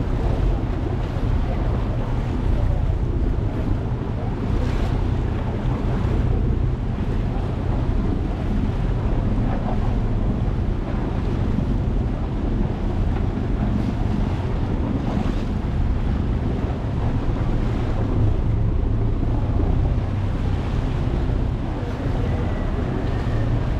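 Motorboat under way at sea: a steady engine hum under water rushing past the hull, with wind buffeting the microphone.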